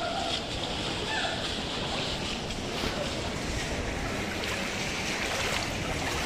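Steady outdoor wash of shallow floodwater and wind, with faint voices in the background.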